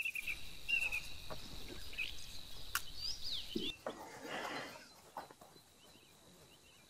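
Outdoor ambience of birds chirping and a steady high insect trill, with a few clicks and a short rush of noise about four seconds in. It falls to near silence for the last second or so.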